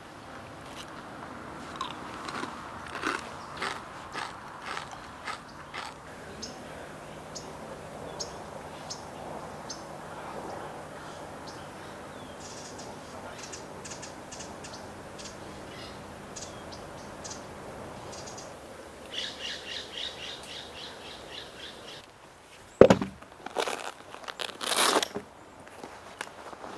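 Light clicks and taps of objects being handled, a quick run of small ticks, then one loud knock and some rustling near the end.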